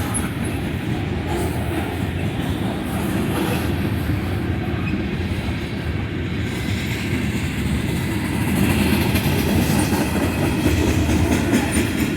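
Freight train cars rolling past at speed: a steady rumble of steel wheels on the rails, getting a little louder about two-thirds of the way through.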